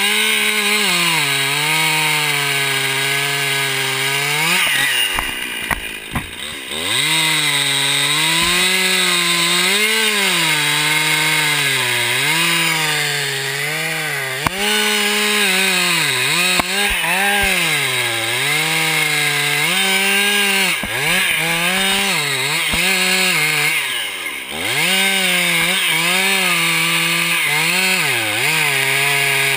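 Two-stroke Stihl top-handle chainsaw cutting through a red oak trunk. Its engine pitch rises and sags again and again as the throttle is worked and the chain bites into the wood. The revs drop back briefly about five seconds in and again near the end.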